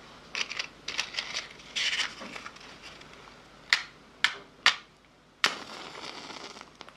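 Close-miked ASMR mouth sounds: a run of small clicks and crackles, then four sharp, louder clicks spaced about half a second apart in the second half.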